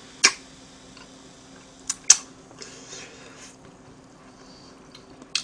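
Mouth and drinking noises close to a microphone: a few sharp clicks, two of them close together about two seconds in, and a brief soft breathy rustle, over a faint steady hum.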